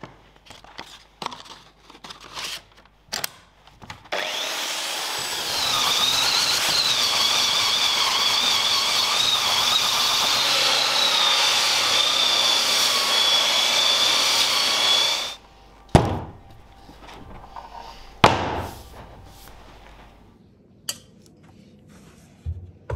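Handheld belt sander running on an oak stair tread for about eleven seconds with a steady high whine, then cutting off abruptly. Before it starts there are small clicks as the sander's sanding belt is changed, and after it stops come two sharp knocks.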